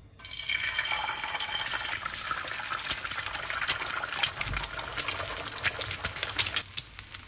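Two eggs frying in hot oil in a pan: a steady sizzle with scattered crackling pops. It cuts off suddenly near the end.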